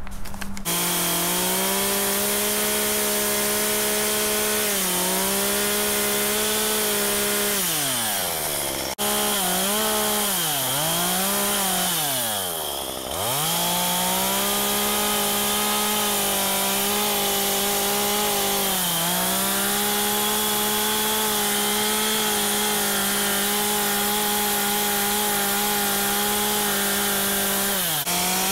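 Stihl two-stroke chainsaw running at high revs as it cuts into a log. Its pitch sags several times as the chain loads up in the wood, most deeply around halfway through, then recovers to full speed.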